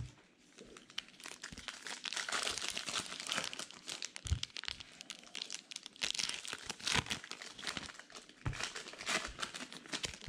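Plastic wrappers of baseball card packs being torn open and crumpled, a continuous crinkling rustle with a few soft knocks.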